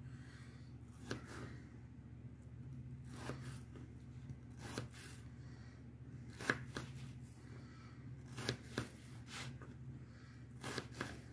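Kitchen knife cutting through onion and knocking on a plastic cutting board: sharp, irregular taps every second or so, some in quick pairs, over a faint steady low hum.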